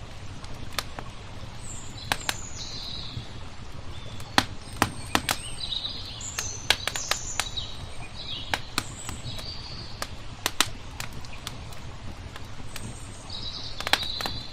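Wood fire crackling with irregular sharp pops, while small birds chirp on and off in short high calls over a steady low rumble.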